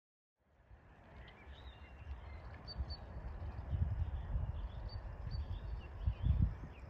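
Birds chirping outdoors over a low, uneven rumble that swells over the first few seconds and peaks near the end.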